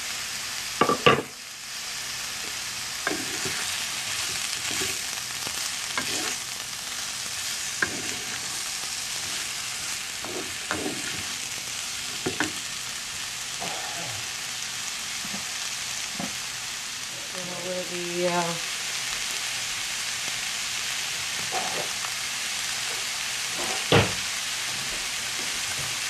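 Vegetables and vegan meat pieces sizzling steadily in a nonstick frying pan while being stir-fried with a wooden spoon. The spoon scrapes, taps and knocks against the pan now and then, with the loudest knocks about a second in and near the end.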